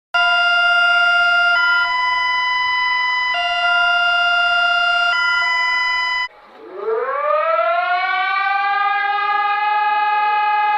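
An electronic emergency alarm: two steady tones alternating low and high, each held about a second and a half, cut off about six seconds in. A siren then winds up, rising in pitch over about three seconds and settling into a steady wail.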